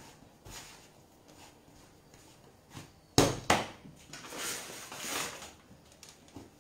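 Hands kneading piadina dough on a floured wooden pastry board: soft rubbing and pressing, two sharp slaps about a third of a second apart a little after three seconds in, then more rubbing and brushing.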